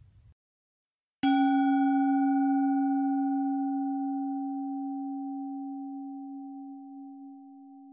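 A singing bowl struck once about a second in. Its low hum rings on and slowly fades, while its few higher overtones die away within a couple of seconds.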